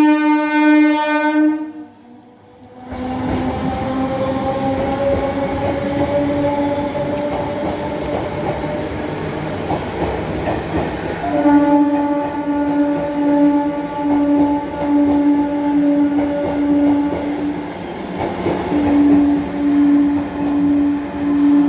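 MEMU electric train horn sounding in a string of short, evenly spaced blasts, cut off about two seconds in. Train running noise follows, with a slowly rising tone. From about eleven seconds in the horn resumes, blasting in a steady pulsing rhythm of roughly one blast a second, with a short break near the end.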